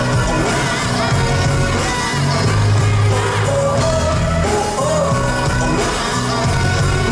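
Live pop-rock music from a concert, loud and steady: a pounding bass line under melodic lines in the instrumental break between the chorus and the next verse.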